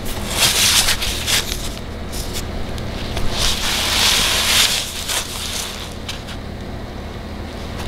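A wooden riser scraping and knocking on a concrete floor as it is slid into place under a pool table leg, with a few short knocks and a longer scrape about halfway through, over a steady low hum.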